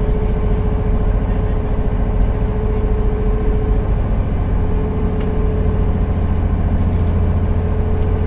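A boat's engine running steadily under way, heard from inside the cabin as a low, even drone with a steady hum held above it.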